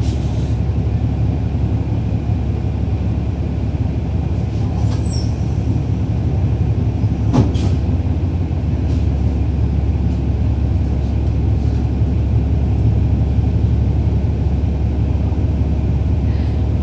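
Inside a NABI 40-foot transit bus: its Cummins ISL9 inline-six diesel engine running steadily. Cabin rattles click over the engine, with a sharp click about seven and a half seconds in.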